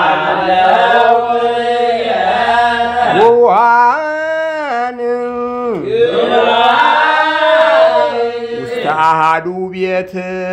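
A male voice chanting an Ethiopian Orthodox Ge'ez hymn, holding long notes that slide up and down in drawn-out melismas, with short breaks for breath.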